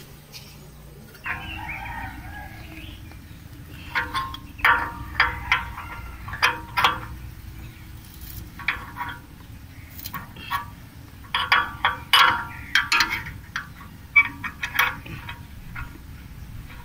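Chickens clucking in short runs of calls, with a longer call a second or two in.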